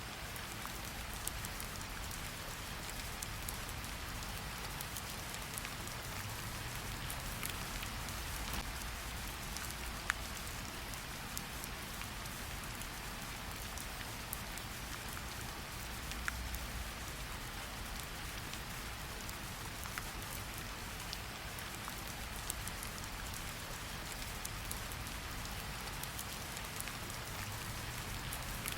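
Steady rain with a crackling wood fire: an even hiss of rain under many small crackles, with a few sharper pops.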